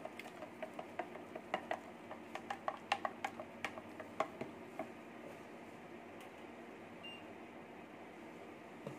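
Grey plastic spoon ticking and clicking irregularly against the sides of a plastic measuring jug while stirring sodium hydroxide into water to make lye; the clicks stop about five seconds in.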